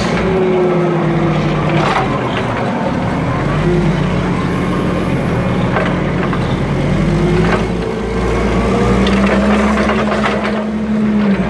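Hyster H60XM forklift running while it is driven and steered, its engine pitch rising and falling several times with the throttle, with a few sharp clicks and knocks.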